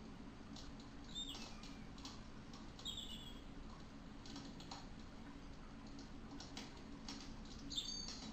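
Colored pencil lead tapping and scratching on drawing paper in short, irregular shading strokes, over a steady low hum. Three brief high-pitched chirps stand out, about a second in, about three seconds in and near the end.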